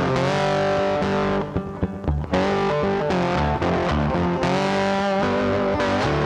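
Background music led by guitar, which thins out briefly about a second and a half in before picking up again.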